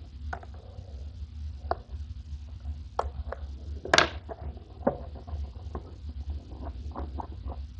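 A cardboard airbrush box and a pen handled on a cutting mat: scattered light taps and rustles, the sharpest tap about four seconds in, over a steady low hum.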